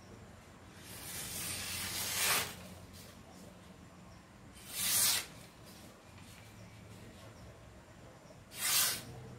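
Newspaper wrapping rustling and sliding against a celurit (Madurese sickle) blade as it is peeled off, in three bursts: a longer one that builds for about a second and a half, then two short ones.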